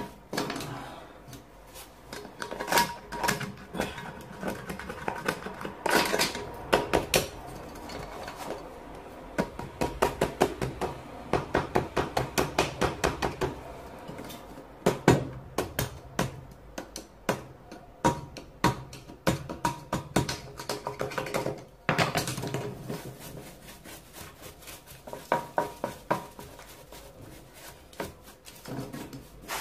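A hand brush and small scraper worked over old terracotta floor tiles, scrubbing and scraping off dirt and mortar residue in quick runs of short strokes, about three to four a second at their fastest.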